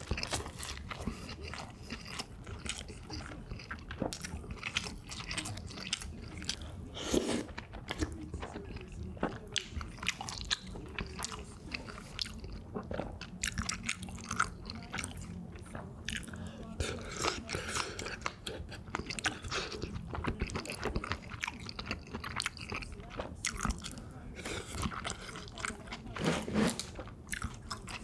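Close-up eating sounds: steady chewing and biting with many irregular crunches and wet mouth clicks, from rice cakes in cream sauce and crunchy spicy pork cartilage (odolppyeo).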